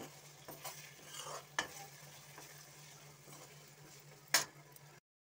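Chopped vegetables sizzling in hot oil in a pan while a spoon stirs them, knocking against the pan a few times, with one sharp knock near the end.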